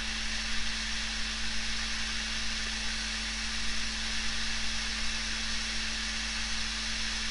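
Hot-air rework station blowing on a laptop motherboard while a small divider resistor is lifted off with tweezers: a steady, even hiss of air with a low steady hum from the blower.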